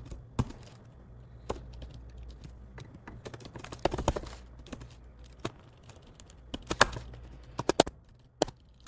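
Typing on a computer keyboard: irregular keystrokes, some bunched into quick runs about four seconds in and again near the end, over a faint low hum.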